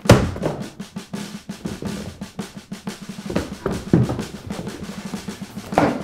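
Drum-kit score kicking in abruptly: fast snare rolls and rapid strikes over bass drum, with a few heavier hits later on.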